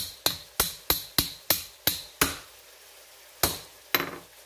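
A cleaver chopping through an ear of corn onto a plastic cutting board: a quick run of about eight sharp chops, roughly three or four a second, then a pause and two more chops near the end.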